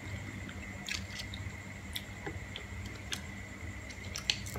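Sparse small clicks of boiled green mussel shells being handled and pried open by hand, over a steady low hum.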